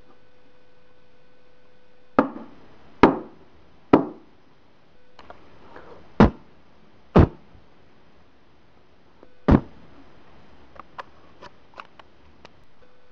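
A series of sharp knocks: six separate hits spaced unevenly, followed near the end by a quick run of smaller, lighter taps.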